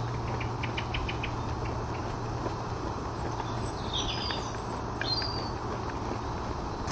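Gas camping stove burner hissing steadily under a pan of cheese sauce, with a spoon ticking and scraping against the pan near the start. A songbird sings a few short, high chirps midway.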